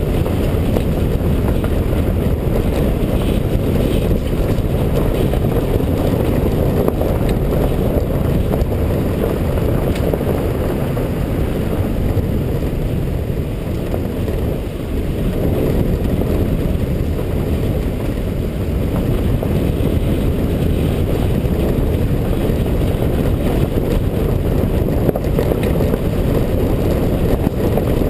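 Car driving along a road: a steady low rumble of tyre, engine and wind noise, easing slightly about halfway through.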